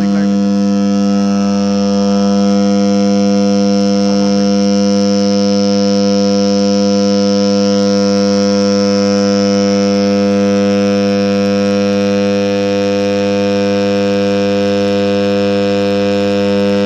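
Small laminated-iron-core transformer on 220 V AC mains, humming loudly and steadily as a buzz with many even overtones. The hum is the core vibrating as it is magnetized and demagnetized, expanding and contracting with the alternating current.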